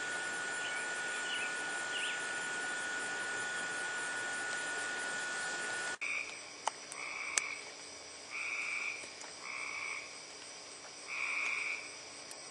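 Steady hiss with a constant high-pitched tone, which changes abruptly about halfway through to five short trilled frog calls, each about half a second long and spaced about a second or more apart. Two sharp clicks come near the first calls.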